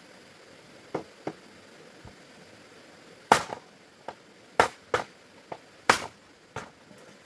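A series of sharp knocks or chopping strikes: two light ones about a second in, then louder irregular strikes from about three seconds in, about one every half second to a second.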